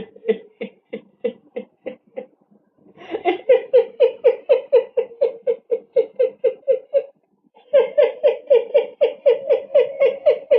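A person laughing in three bouts of quick, evenly spaced, high-pitched 'ha' bursts, about three to four a second. The first bout is fainter; the second starts about three seconds in and the third about eight seconds in.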